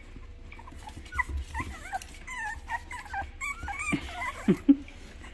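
Several young puppies whimpering and yipping in a string of short, high squeaks as they play, with two louder, lower yelps about four and a half seconds in.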